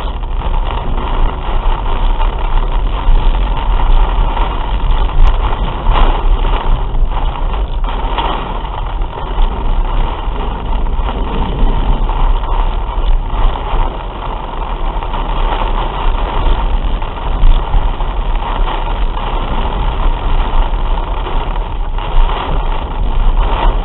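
Torrential rain drumming on a car's roof and windshield, heard inside the cabin as a loud, dense patter, over a low steady rumble of the car driving on the flooded road.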